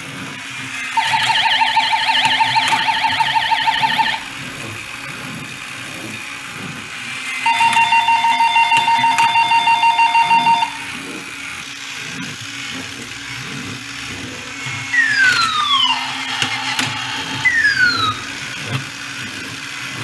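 Hap-P-Kid Thunder Warrior battery toy robot walking and playing electronic sound effects. Its gear motor whirs steadily underneath. Two rapid warbling beep sequences of about three seconds each come first, then a few quick falling electronic zaps near the end.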